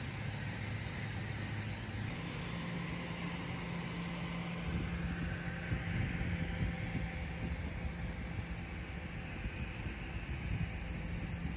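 Steady engine drone: a constant low hum under a hiss, the hum's pitch stepping up about two seconds in and then holding.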